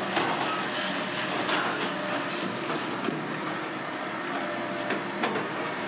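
Heavy tracked demolition excavators running steadily, with scattered metallic clanks and knocks from tracks and scrap metal; one sharper knock about five seconds in.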